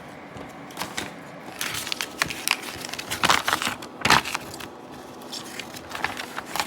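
Paper rustling and crinkling in irregular bursts as an instruction sheet is handled, loudest about three to four seconds in.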